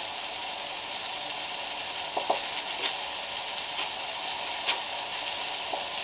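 Atomic stovetop espresso machine hissing steadily on the hob, with a few faint pops, as it comes to pressure and pushes the coffee through. This change in its sound is the cue to start steaming the milk.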